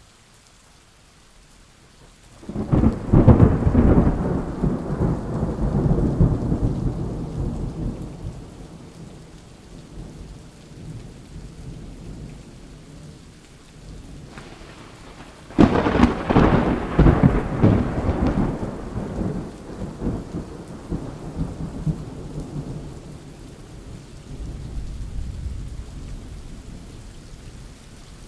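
Thunderstorm: steady rain with two loud peals of thunder, the first cracking in about two and a half seconds in and the second about fifteen seconds in, each rolling away over several seconds.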